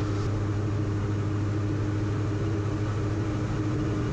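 Cabin drone of a Diamond DA42 VI twin in flight, with its two Austro AE300 turbo-diesel engines and propellers running steadily. It is heard from inside the cockpit as a constant low hum with a steady tone in it.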